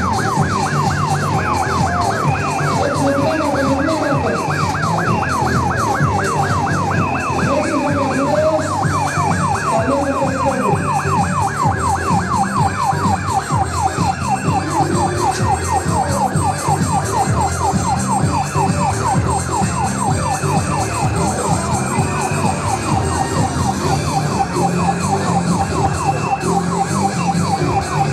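An ambulance-style emergency siren in fast yelp mode: quick sweeps in pitch repeating about four times a second, continuously.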